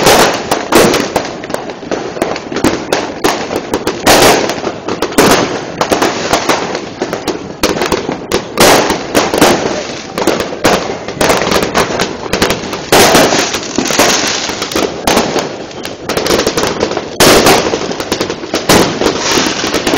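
Fireworks going off without pause: many overlapping bangs and pops in quick, irregular succession, some much louder than others.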